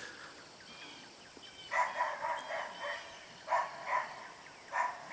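Quiet outdoor background with several short bird calls. Right at the end comes one sharp crack as the Ruger Mark 1 pellet pistol is fired.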